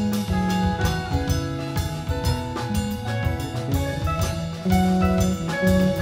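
A live band playing an instrumental passage: a drum kit keeps a steady beat under an electric guitar and held, sustained notes.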